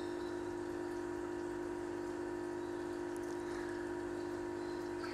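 A steady low hum over a faint hiss, even and unchanging, like a motor or appliance running.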